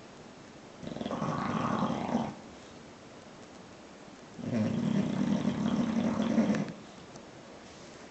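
Bulldog snoring: two long snores, each lasting about two seconds, the second starting about three and a half seconds after the first.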